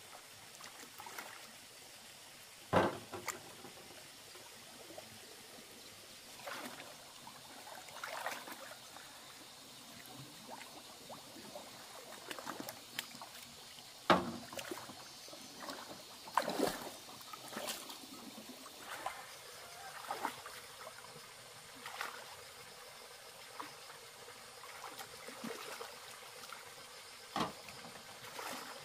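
Hands sloshing and splashing in shallow muddy stream water while feeling for shellfish, with a handful of sharp knocks as shells are dropped into a floating metal basin.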